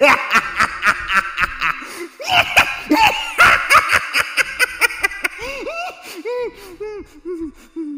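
An ugly, demonic laugh: rapid, loud bursts of laughter that slow after about five seconds into separate falling 'ha's and fade away.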